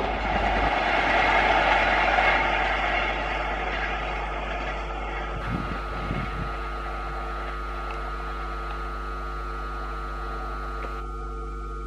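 Express passenger train on an electrified line rolling away after passing close by, its wheel and rail noise fading steadily as it recedes. A few faint low knocks come about halfway through, and a faint steady hum of several tones remains afterwards.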